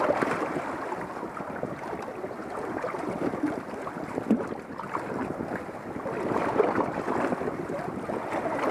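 Wind buffeting the camera's microphone: a steady noise that swells and eases in gusts, strongest about two-thirds of the way through.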